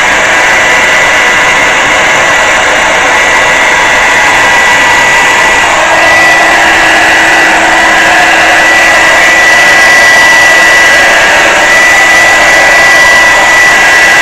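Handheld hair dryer running steadily, a loud rush of air with a high motor whine, blowing wet acrylic paint outward across the canvas in a Dutch pour. A lower hum joins about halfway through.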